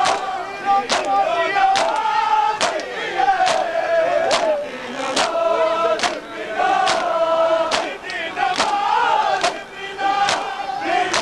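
Men's voices chanting a mourning lament while a crowd beats their chests in time (matam). The hand slaps land together, sharp, a little more often than once a second.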